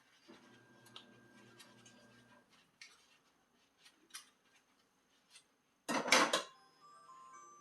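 Dishes and cutlery clinking and knocking together during washing up, with scattered light clinks and a louder clatter about six seconds in.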